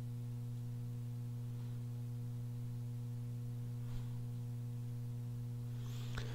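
Steady low electrical hum with a faint hiss under it, and a tiny click about four seconds in.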